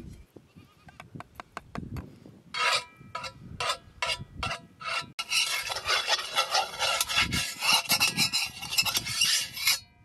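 Metal spoon scraping across the surface of a large iron pan. About two and a half seconds in come separate strokes, roughly two a second. From about halfway through, the scraping turns quick and continuous, then stops just before the end.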